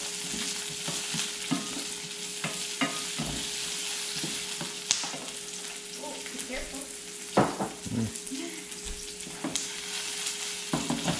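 Sliced white onion sizzling in hot oil in a nonstick skillet, with a spatula scraping and tapping against the pan now and then as it is stirred. A sharper knock comes about seven seconds in.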